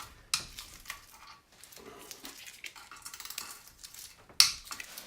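Metal hand tools clinking and knocking while a socket is readied for the oil sump bolts on a BMW R80 airhead engine. There is a sharp knock about a third of a second in, lighter clicks after it, and a louder clank near the end.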